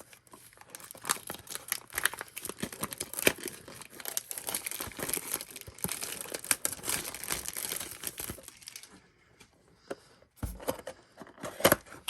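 Plastic wrapping being torn off a trading-card blaster box and crinkled, a dense crackling for most of the stretch, followed near the end by a few handling knocks on the box.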